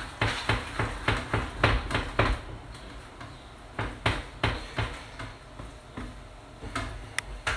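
Wooden spoon stirring gnocchi in an enamel saucepan, knocking against the pot: quick knocks about four a second for the first couple of seconds, then slower, scattered knocks.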